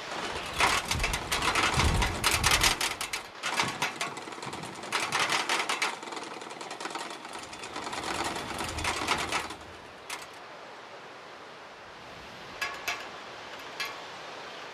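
Small four-bladed windmill on a pole rattling and clattering as it spins, in a fast, dense run of clicks. The clatter stops about ten seconds in, leaving only a few faint clicks.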